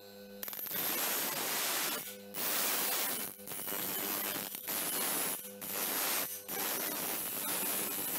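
Steel knife blank being ground on a Seiko electric bench grinder's wheel: a loud, even hiss of grinding that breaks off every second or so as the blade lifts off, letting the motor's steady hum through, then starts again with the next pass.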